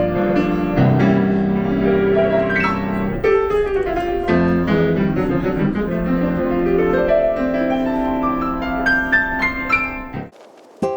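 Instrumental background music led by piano over sustained low notes, stopping abruptly about ten seconds in.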